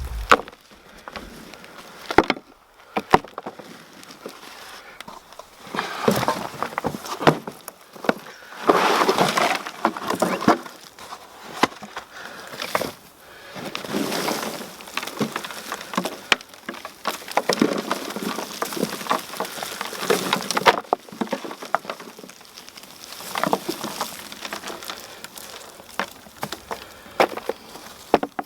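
Hands rummaging through soil in a potato container, with irregular rustling, scraping, crumbling and sharp clicks and knocks as the soil is broken up and potatoes are pulled out.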